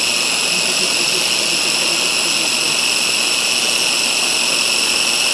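Electric food chopper motor running steadily with a high whine, pureeing fried chilies, tomatoes and onions into a paste.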